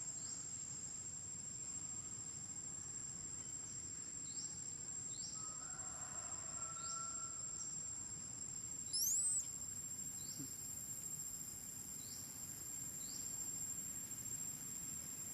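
Insects droning on one steady high note, with short rising chirps repeating about once a second and one louder rising-then-falling chirp about nine seconds in.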